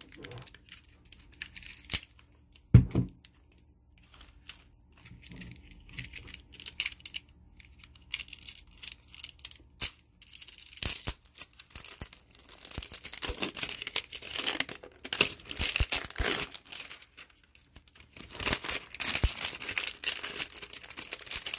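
Clear plastic wrapping being peeled and torn off a plastic slime tub, crinkling and crackling in irregular bursts that grow denser in the second half. A sharp knock about three seconds in is the loudest sound.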